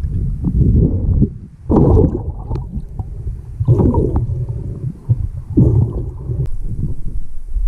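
Muffled underwater rumbling and gurgling, heard through a waterproof camera housing. It swells in surges about every two seconds, with a few faint clicks.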